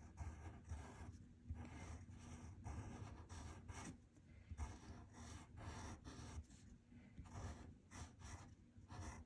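Pencil scratching faintly on paper, drawing short strokes with brief pauses between them as it sketches small leaf-shaped links.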